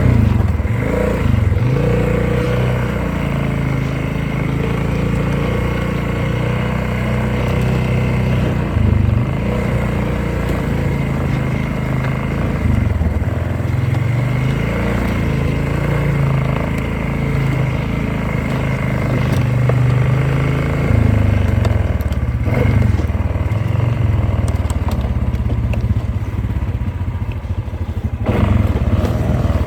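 Polaris off-road vehicle's engine running while riding, its pitch rising and falling as the throttle changes.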